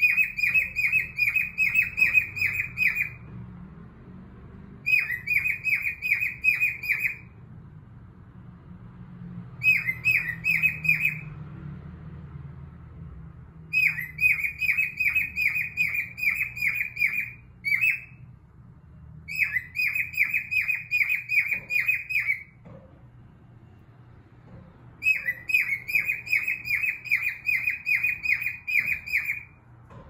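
Cockatiel singing: six bursts of quickly repeated high-pitched notes, about five a second, each burst lasting two to four seconds with short pauses between.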